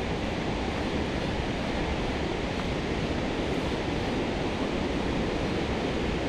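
Steady rush of flowing water from the falls or the stream below them, an even noise without breaks.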